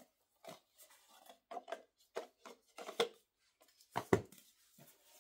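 Plastic Blu-ray cases being handled: an irregular series of light clicks and taps, the loudest pair about four seconds in.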